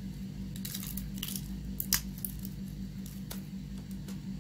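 Plastic cap of a pen-style eyeliner being worked off with the teeth: a few small clicks and rustles, with one sharp click about two seconds in, over a steady low hum.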